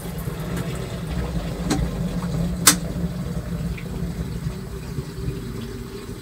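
Washing machine running its wash cycle: a steady low motor hum with water churning, and two sharp knocks from inside the drum, the louder one about two and a half seconds in.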